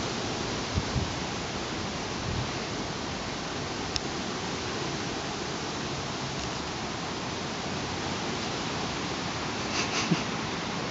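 Steady rush of wind outdoors, an even hiss with no pitch, and a few soft low thumps about a second in.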